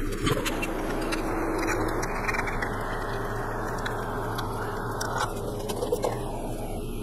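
Light clicks and scraping of a hex key and hands working the bolts of a motorcycle's air cleaner cover, over a steady rushing background noise with a low hum.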